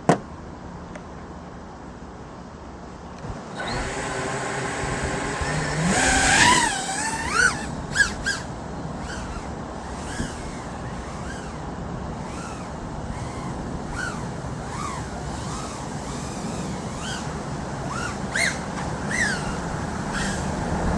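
A sharp click, then about three and a half seconds in the brushless motors of a micro FPV quad (RCinpower 1003 14,000KV) spin up. They whine in quick rising and falling sweeps as the throttle is punched and eased, over a steady hiss.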